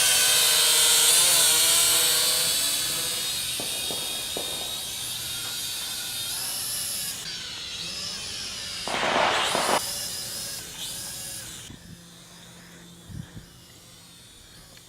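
A quadcopter drone's motors and propellers whining, the pitch wavering as it manoeuvres and the sound growing fainter as it climbs away. A short burst of rushing noise about nine seconds in.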